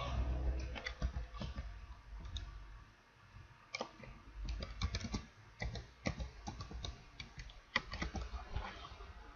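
Computer keyboard being typed on: irregular, fairly quiet key clicks as a word or two is entered.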